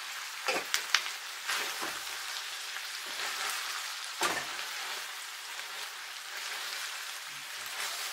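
Meat and vegetables sizzling in a frying pan, with a wooden spoon scraping and knocking against the pan as it is stirred. The spoon strikes stand out several times in the first second and a half and once about four seconds in.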